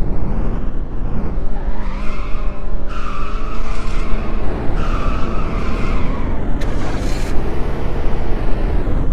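Loud, steady motor-vehicle noise with a high squealing tone that comes in twice: about two seconds in and again about five seconds in.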